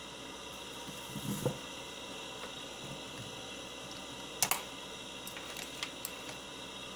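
Handling noise from a laptop being taken apart: soft knocks about a second and a half in, then a couple of sharp clicks about four and a half seconds in and lighter ticks after, over a steady background hiss.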